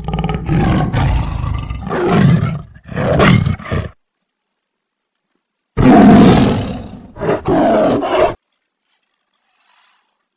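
Tiger roaring in two bouts, each made of several surges, with a pause of about two seconds between them.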